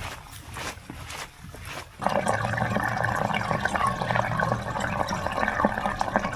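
Running water, a steady trickling flow, switches on abruptly about two seconds in and keeps going evenly. Before it, a few light footsteps are heard.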